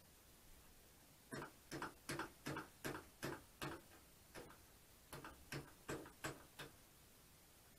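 Hand ratchet worked in short back-and-forth strokes, about a dozen quick clicking bursts in two runs, roughly two to three a second, as bolts are snugged on a motorcycle's front end.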